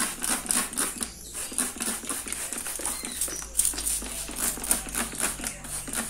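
Trigger spray bottle spritzing cleaning liquid onto a plastic fan grille in quick repeated sprays, several a second, to soften the caked dust.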